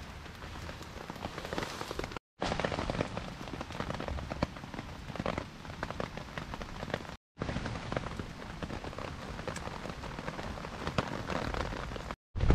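Rain pattering on the tarp overhead: a steady dense spatter of small drops. It cuts out briefly twice, about two seconds in and about seven seconds in.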